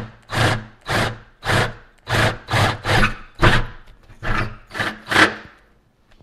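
A 19.2-volt cordless drill with a 5/8-inch bit cutting through a metal door skin in about ten short bursts, roughly two a second, finishing the hole where it meets the cut from the other side. It stops near the end.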